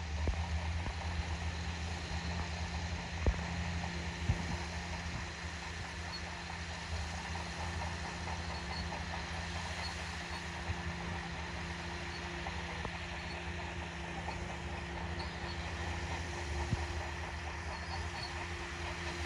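Excavator engine running steadily at idle, a low even hum, with two sharp knocks about three and four seconds in.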